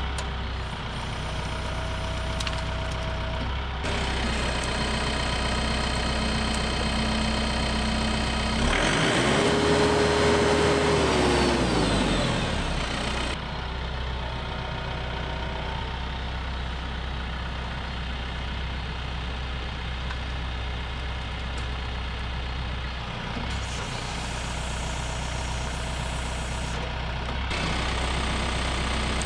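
TYM T654 compact tractor's diesel engine running steadily, revving up about nine seconds in, holding for a few seconds and dropping back as the front loader works the grapple rake lifting a load of brush.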